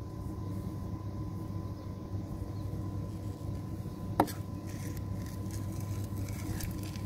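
Hard plastic pipe fittings knocking together as a PVC ball valve is pushed onto a pipe joint: one sharp click about four seconds in, then a few lighter taps, over a steady low background rumble.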